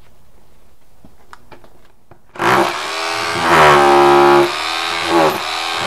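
Corded Bosch rotary hammer with a chisel bit chipping stucco off a wall. After a couple of seconds of faint handling clicks it starts suddenly and runs loud, surging about three times, with its pitch sagging at each surge.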